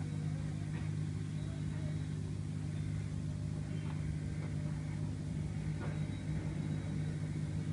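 Steady low hum with a few faint ticks, about one second in and again around four and six seconds, as side-cutting pliers press aluminium foil down over the phone's circuit board.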